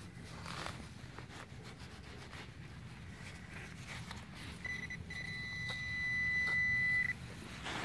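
Metal-detecting pinpointer probing a soil plug: faint scraping of dirt, then past the halfway mark a short beep followed by a steady high-pitched tone that grows louder for about two seconds and cuts off. The tone is the pinpointer signalling a coin in the soil.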